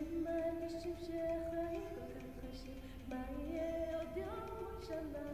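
A woman's solo voice singing a slow Jewish song unaccompanied, with long held notes that step up and down in pitch.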